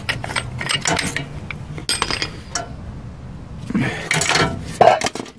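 Irregular light metal clinks and clicks of hand tools being handled against a brake caliper.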